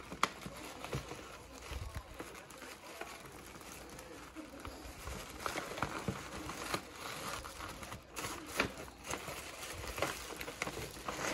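Tissue paper and a metallic gift bag crinkling and rustling in irregular bursts as hands pull the tissue out of the bag.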